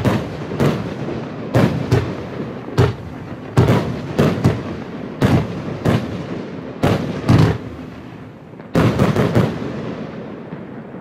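Funke Weißblinker-Dahlien 25-shot firework battery firing its shots: a quick run of sharp bangs, one or two a second, a short pause, then a last tight cluster about nine seconds in, after which the bangs stop and the sound dies away.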